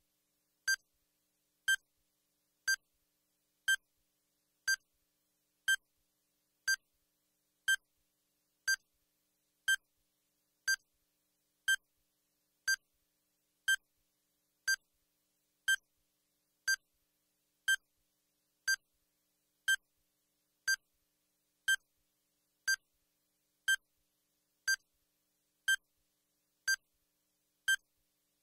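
Countdown timer sound effect: a short, high electronic beep once every second, steady and even, as the one-minute question timer runs down.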